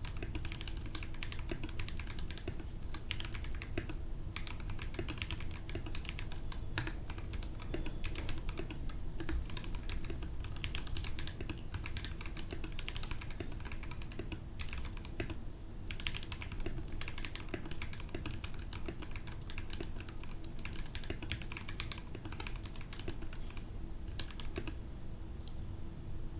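Fast, continuous typing on an RK61 60% mechanical keyboard fitted with Honey and Milk keycaps: a dense run of key clicks with a few short pauses, over a faint steady hum.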